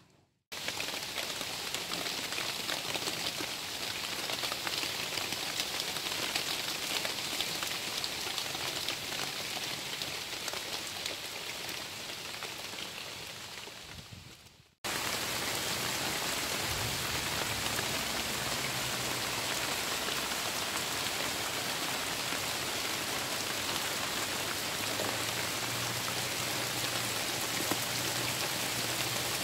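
Heavy tropical rain falling steadily on wet brick paving and trees. It starts abruptly about half a second in, breaks off for an instant about fifteen seconds in, then carries on.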